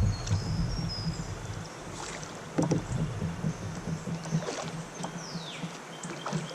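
Water sounds around a fishing kayak on a river, with scattered sharp clicks and knocks from the boat or tackle and a brief high falling whistle about five seconds in.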